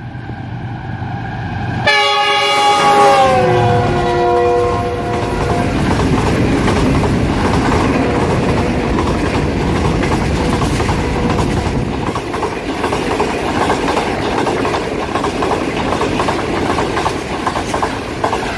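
A passenger train running through at speed. About two seconds in, the diesel locomotive's horn sounds for a few seconds, its chord dropping in pitch as the locomotive passes. Then the coaches go by with a steady rumble and clatter of wheels over the rail joints.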